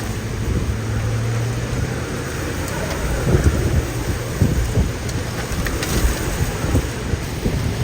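Severe thunderstorm wind and rain, with strong gusts buffeting the microphone in low, irregular rumbles from about three seconds in.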